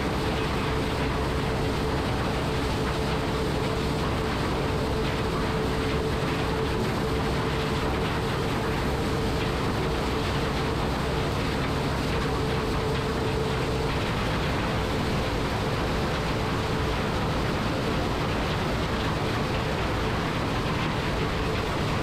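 New Holland CR9060 combine running steadily while harvesting corn: an even mechanical drone with a steady hum over it.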